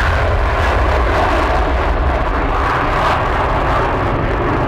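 Two McDonnell Douglas RF-4 Phantom II jets taking off together, their J79 turbojets giving a loud, steady jet roar with a deep rumble as they climb away.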